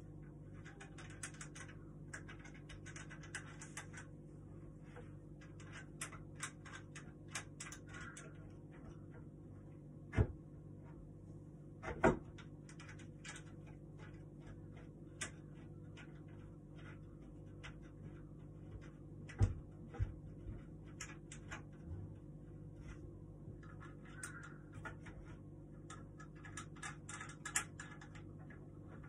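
Quick runs of small clicks and scrapes from screws being turned by hand into the wooden panels of a flat-pack table, broken by a few louder knocks around the middle. A steady low hum runs underneath.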